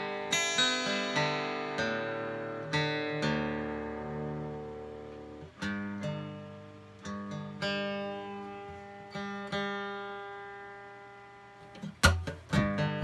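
Acoustic guitar being tuned: single strings plucked one at a time and left to ring out, with a sharp strum about twelve seconds in.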